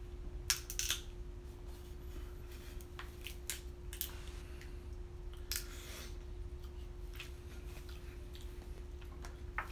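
Crab-leg shells cracking and snapping as they are broken open by hand, a few sharp cracks scattered through, with a noisier crunch about halfway. A steady faint hum runs underneath.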